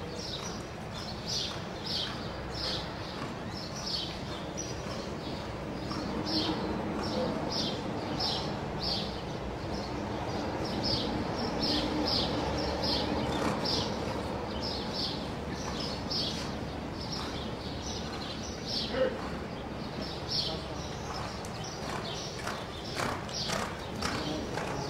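Reining horse loping on soft dirt arena footing: a steady rhythm of hoofbeats, about one and a half strides a second, with one sharper, louder knock about three-quarters of the way through.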